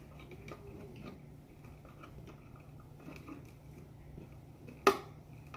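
Quiet handling of stripped electrical wires and a wire-stripping tool: faint clicks and rustles, with one sharp click near the end, over a steady low hum.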